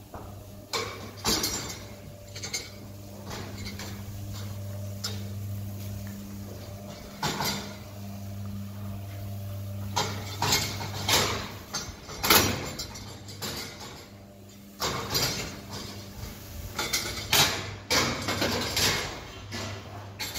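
Steel headlock feed barriers clanking and rattling again and again as cows move their heads in them while eating hay. Under the clanks is a steady low electric hum that stops about two-thirds of the way through and comes back near the end.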